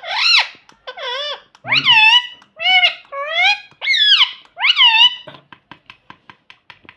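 Pet parrot calling in a string of about six short, high, squawking notes that bend up and down in pitch, then a quick run of soft clicks, about eight a second, for the last second and a half.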